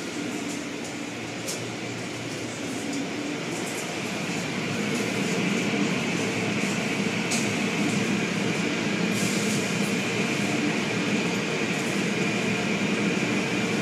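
Automatic car wash heard from inside the car: rotating brushes and cloth strips scrubbing and slapping across the body and windshield over the running machinery, a steady rushing noise with a few light ticks that grows louder about four seconds in.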